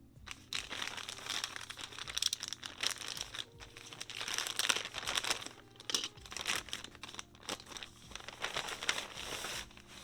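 Plastic packaging crinkling and rustling as it is handled and opened, in dense irregular bursts.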